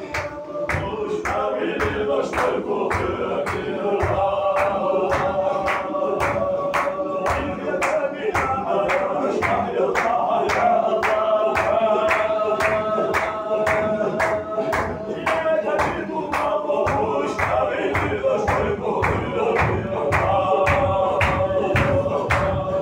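A group of men chanting a Sufi zikr: a held, slowly changing sung melody over a sharp, even rhythmic beat about three times a second.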